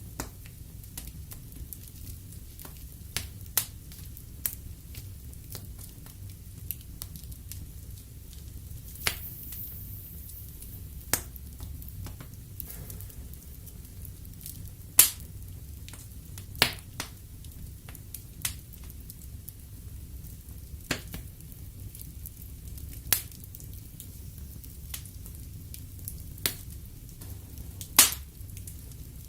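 Wood fire burning in a fireplace: a steady low hiss with irregular sharp crackles and pops of the burning logs, the loudest pops about fifteen seconds in and near the end.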